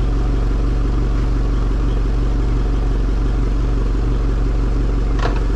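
Brand-new Suzuki 200 four-stroke outboard idling steadily at about 700 rpm in forward gear on flushing muffs, at its very first start-up. A brief click comes near the end.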